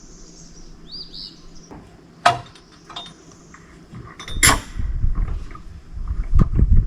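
A sheet of AdvanTech subflooring being pulled up a ladder onto the deck: a sharp knock about two seconds in, another about two seconds later, then a run of low thuds and rumbling as the panel drags and bumps. A bird chirps faintly about a second in.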